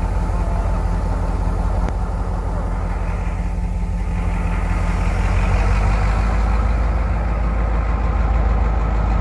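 EMD GL18B locomotive's V8 645 two-stroke diesel engine running with a steady low drone, getting slightly louder a little over halfway through. Heavy rain hisses over it.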